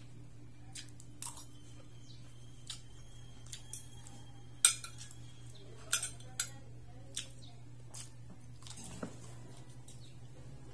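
Metal spoon and fork clinking and scraping against a plate, about a dozen sharp separate clinks with the loudest about four and a half seconds in. A steady low hum runs underneath.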